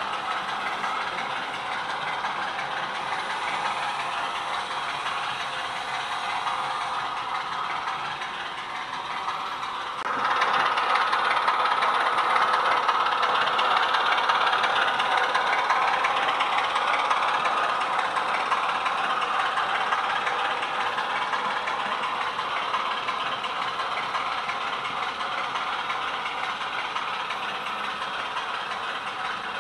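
Diesel engine sound from the factory sound decoder in a Roco H0 model of the ČSD T 752 diesel locomotive, running steadily as the model train moves along the layout. It gets suddenly louder about ten seconds in and then slowly fades a little.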